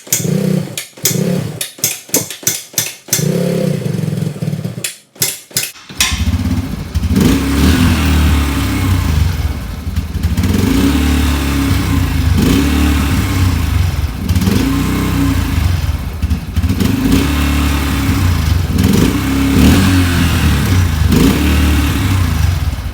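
Yamaha TTR125's single-cylinder four-stroke engine sputtering with rapid uneven pops, then catching about six seconds in and running, revved up and down over and over.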